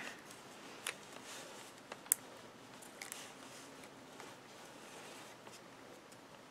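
Faint rustling of small cardstock pieces and a glue dot being handled, with a few light ticks, the sharpest about two seconds in, as the glue dot is worked off its backing paper.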